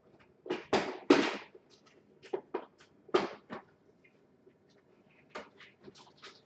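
Someone rummaging through spare parts: irregular rustles, clatters and knocks, loudest about a second in and again about three seconds in.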